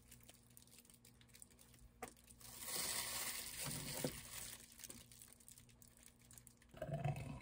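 Disposable plastic gloves and a plastic piping bag crinkling, then a plastic ketchup squeeze bottle being squeezed, squirting onto food, with a short louder squelch near the end.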